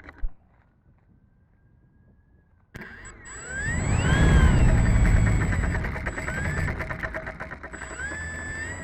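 Electric motor and propeller of a 3D-printed Extra 300 RC plane: a faint thin whine, then about three seconds in it throttles up suddenly and runs loud, its whine gliding up and down with the throttle.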